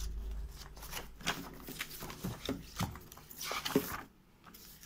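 Paper instruction manual being leafed through and handled, a string of short, irregular rustles and flicks of pages that die down about four seconds in.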